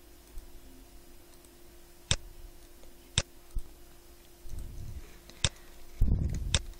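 Computer mouse clicking, about five sharp separate clicks at uneven intervals, with two brief low rumbles between them.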